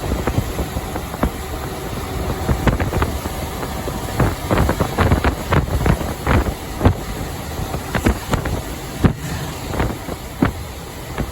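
Truck driving at highway speed: a steady rush of engine, road and wind noise, broken by many short, irregular knocks and rattles.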